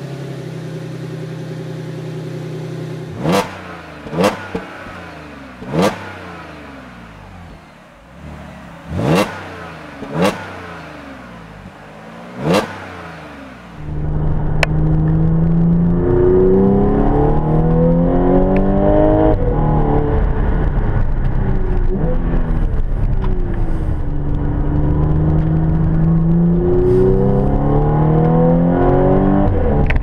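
Audi B8 S4's supercharged 3.0-litre V6 idling at its quad-tip exhaust, blipped six times with sharp revs that fall straight back to idle. About halfway through, it is heard from inside the cabin while driving, the engine note rising under acceleration, dropping at gear changes and easing off.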